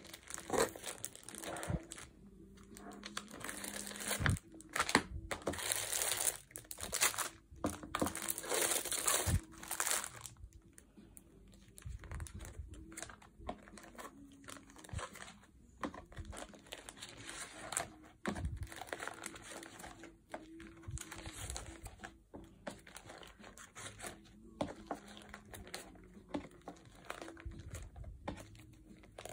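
Plastic archival negative sleeves rustling and crinkling as pages of film negatives are handled and turned in a storage box, with small taps and clicks. The rustling is loudest and busiest in the first ten seconds, then softer.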